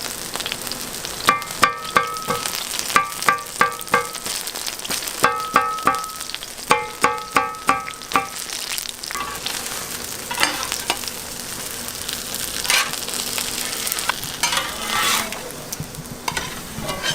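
Green onion pancake batter frying and sizzling, broken in the first half by four quick runs of ringing clinks of a metal utensil striking metal.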